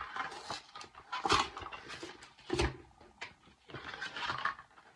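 A shipping package being handled and torn open: irregular rustling and tearing, with a thump about two and a half seconds in.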